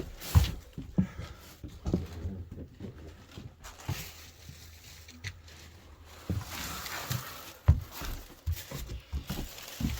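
Irregular footsteps and thuds of someone walking over a debris-strewn floor, with a brief rustle about two-thirds of the way in.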